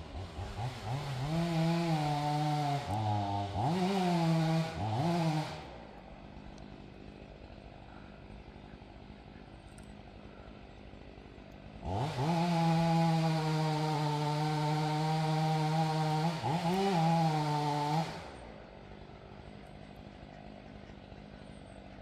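Chainsaw cutting at the base of a dead tree being felled. It revs up to full speed twice, first for about five seconds and then for about six seconds near the middle. The pitch dips briefly a few times under load, and the saw falls quiet between the runs.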